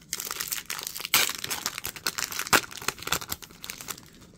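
A foil trading-card pack wrapper being torn open and crinkled by hand, a run of dense crackling with sharper crackles about a second and two and a half seconds in.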